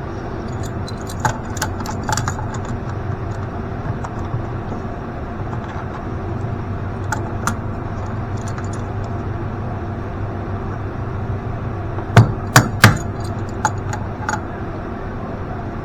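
Hand tools clicking and knocking while fittings are being undone, with three loud sharp knocks in quick succession about twelve seconds in. A steady low hum runs underneath.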